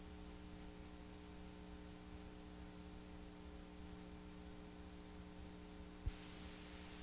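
Faint steady electrical hum with several held tones under an even hiss, from a blank Super-VHS tape playing back, with a single sharp click about six seconds in.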